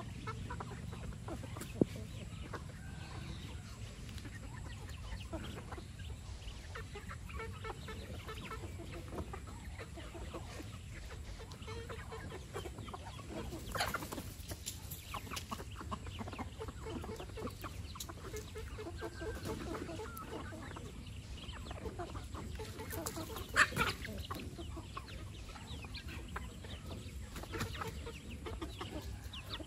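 A flock of chickens clucking softly while foraging. Two louder brief sounds stand out, one about halfway through and one about three quarters of the way in.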